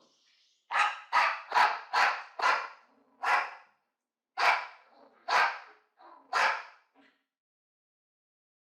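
Angry dog barking: a fast run of about six sharp barks, then three more spaced about a second apart, stopping about seven seconds in.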